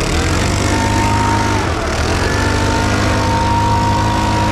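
Cordless leaf blower blowing dust off a combine harvester: its motor whine climbs, dips briefly a little under two seconds in, then climbs back and holds steady. A steady low hum runs underneath.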